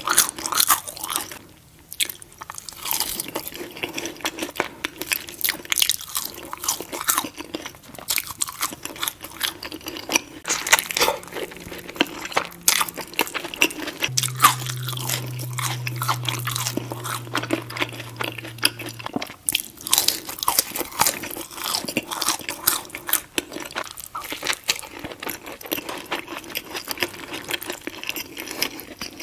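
Close-miked ASMR eating: steady chewing and crunching of a burger and thick-cut fries, full of irregular crackly bite and mouth sounds. A low hum comes in for about five seconds midway.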